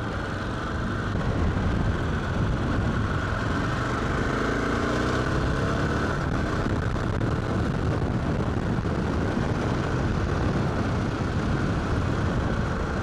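Aprilia Pegaso 650's single-cylinder engine running through its stock exhaust on the road, under heavy wind rush on the helmet microphone. The engine's pitch climbs for a few seconds around the middle as the bike picks up speed.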